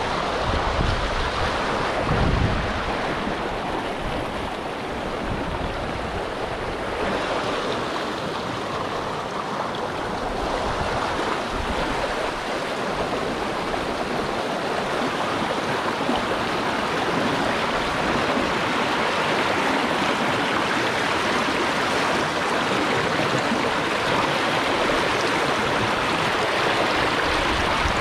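River rapids rushing between boulders: a steady, even rush of water, close by. A low rumble sits under it for the first few seconds.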